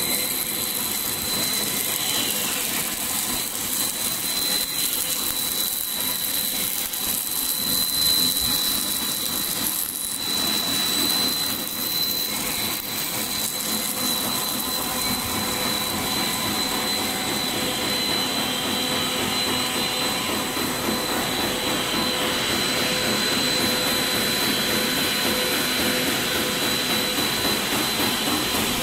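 Fried wheat wavy-chip extrusion line running: a steady mechanical hiss and hum of the extruder and conveyor drives, with a constant high-pitched whine over it.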